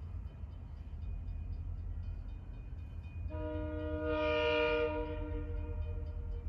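Diesel locomotive's multi-chime air horn sounding one long blast, a chord of several notes, starting about three seconds in and strongest in the middle, over a steady low rumble. Near the end the upper notes fade out while one note holds on.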